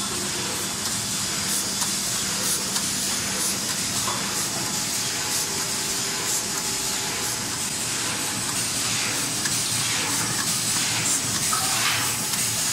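Automatic dual-press hot foil stamping and die-cutting machine running: a steady hissing machine noise from the sheet feeder and gripper-bar transport, with faint irregular ticking over it.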